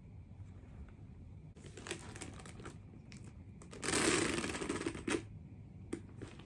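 Metal chain strap of a Saint Laurent Niki shoulder bag rattling and clinking as it is lifted and shifted, loudest for about a second around four seconds in, with lighter handling clicks before it.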